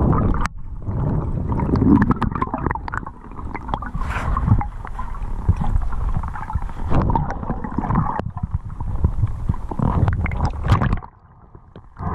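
Underwater sound through a camera housing: muffled rumbling water movement with frequent clicks and knocks as gloved hands handle a recovered Hobie kayak pedal drive and strip algae from it. The sound goes much quieter for about a second near the end.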